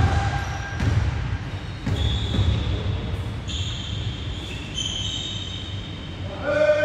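A basketball thudding on a hardwood gym floor, with sneakers squeaking on the court for a couple of seconds in the middle, echoing in a large hall. A short shout comes near the end.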